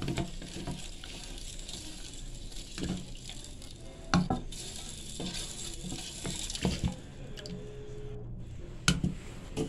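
Wooden spoon stirring a watery leaf mixture in a stainless steel pot, the liquid swirling, with scattered knocks of the spoon against the pot, the loudest about four seconds in and near the end.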